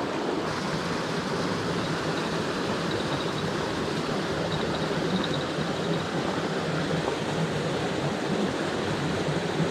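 Mountain stream water rushing steadily over rocks, an even hiss of flowing water with no change in level.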